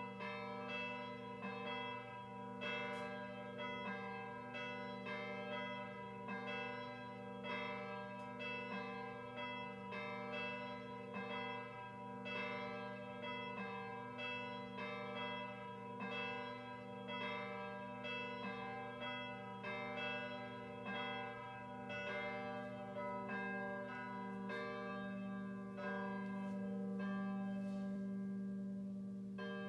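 Schulmerich Basilican III DSP electronic carillon playing its weekday mass call: two sampled cast swinging bells pealing, struck over and over in a steady alternation over their lingering hum. Near the end the strikes stop and the bells ring on.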